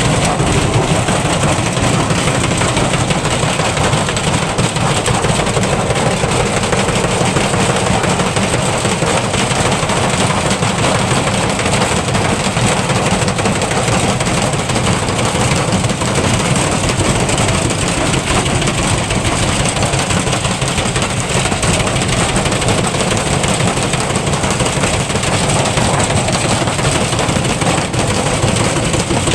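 Electrolux washing machine running with a brick in the drum, giving a loud, steady, continuous mechanical rumble and rattle.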